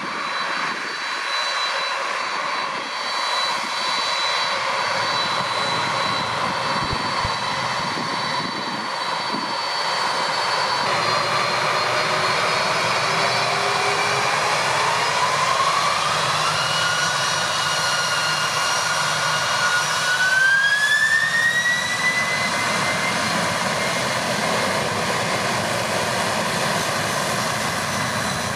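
Boeing 767-300ER's twin General Electric CF6-80C2 turbofan engines spooling up for the takeoff roll: a steady whine at low power, then a whine that rises in pitch about eleven seconds in, levels off, and rises again about twenty seconds in as takeoff thrust is set, the engine noise growing louder.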